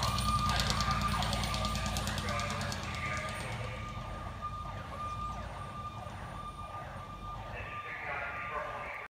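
Sirens of a 1999 Pierce Dash 105-foot quint fire truck on an emergency run, a steady high siren tone over rising-and-falling siren sweeps, growing steadily fainter as the truck drives away, with the diesel engine's low rumble underneath.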